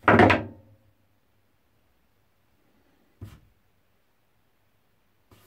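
A metal tube jig set down on a table: a sudden clatter with a brief metallic ring that dies away within a second, followed by a soft knock about three seconds later.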